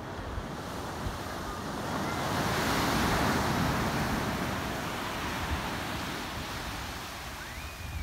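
Surf breaking on a pebble shore: one wave's rush swells about two seconds in, peaks around three seconds, then slowly fades as the water washes up and draws back.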